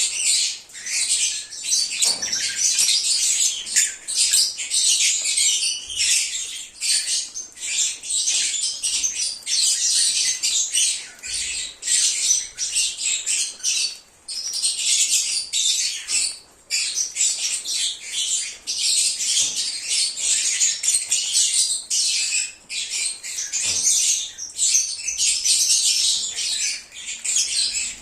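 A flock of lovebirds chattering and screeching continuously, many shrill overlapping calls with hardly a pause.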